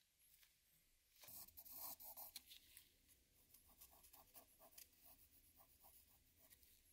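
Wooden stick scraping and pressing putty along the edge of a glass lantern lens in its metal frame. It starts about a second in and then goes on as a run of short, quick scraping strokes.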